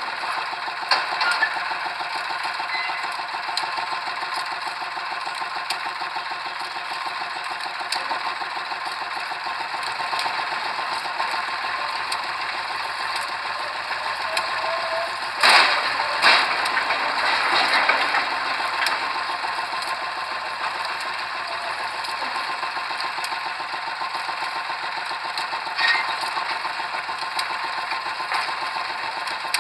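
Pile-driving rig machinery running steadily, an engine with a rapid mechanical rattle. Sharp metallic clanks stand out about a second in, twice around the middle, and once more near the end.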